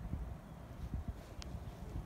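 Wind buffeting a phone's microphone, an irregular low rumble, with one brief high chirp about one and a half seconds in.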